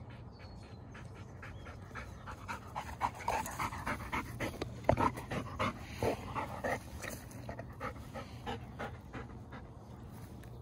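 Golden retriever panting close to the microphone: quick, rhythmic breaths that start about two seconds in, are loudest in the middle and ease off toward the end.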